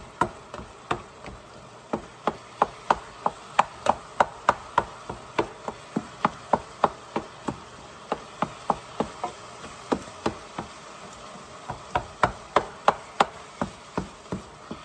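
A cooking utensil knocking against a pan over and over, about three strikes a second with a couple of short pauses, as browning meat is turned and broken up. A faint steady hiss runs underneath.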